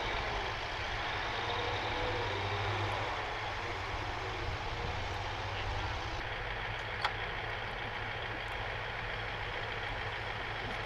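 Heavy military vehicle engine idling: a steady low drone, with a single sharp click about seven seconds in.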